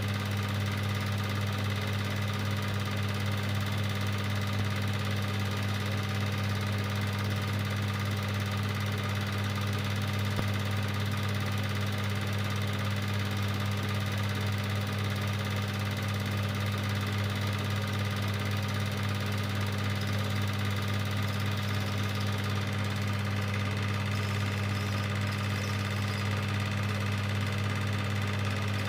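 Cine film projector running: a steady motor hum with a whirring hiss over it.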